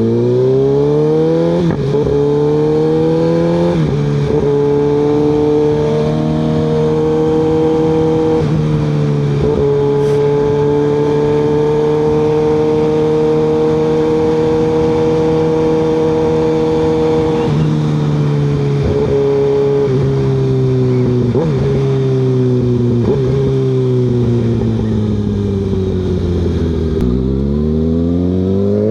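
Kawasaki ZX6R 636's inline-four through an M4 GP-style exhaust running without its baffle, on the move: it pulls up through two gear changes, holds a steady cruise, then drops through several downshifts with short rev blips as it slows, and accelerates again near the end.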